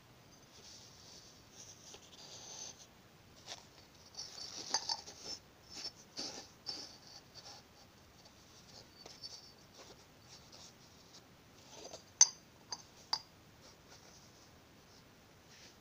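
Handling noise as seashells are moved and turned by hand: scratchy rubbing and scraping in the first half, then scattered light clicks and taps, with one sharp click about twelve seconds in.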